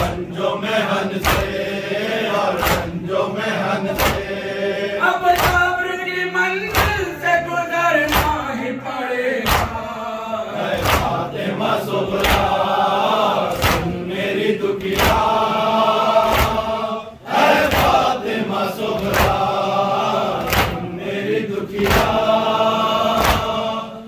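Men's voices chanting a Urdu noha lament in unison, kept in time by the rhythmic slaps of hands beating on chests (matam), about four slaps every three seconds.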